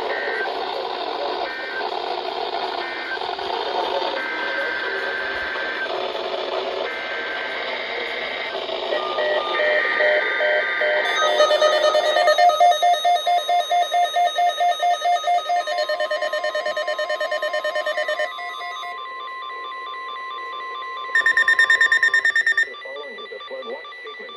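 NOAA Weather Radio emergency alert signalling: buzzy two-pitch data tones over radio static for the first ten seconds or so, then rapid pulsing alert beeps, about four a second. A steady warning alarm tone follows, and near the end a short, loud burst of tone.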